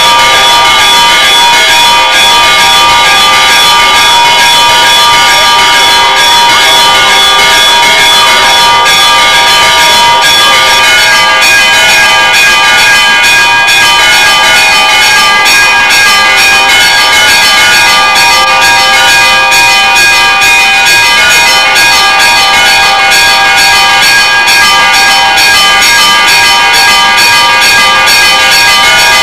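Church bells pealing continuously, struck many times a second, their ringing tones overlapping into a loud, steady clangour.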